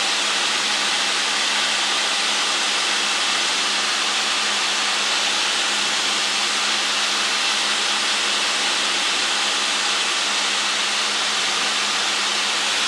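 Steady drone of a light aircraft's piston engine and propeller in cruise, heard inside the cabin as an even rushing noise over a steady low hum.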